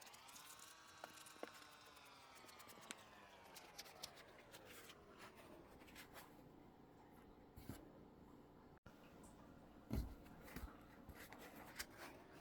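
Faint crackling, scratchy rubbing of a foam squishy toy being squeezed and handled, with a soft thump about ten seconds in. A faint humming tone under it slowly slides down in pitch and rises again near the end.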